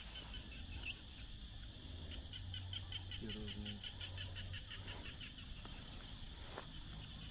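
Nighttime chorus of insects and frogs: a steady high-pitched whine under rapid pulsed chirping, with a brief lower call about three seconds in.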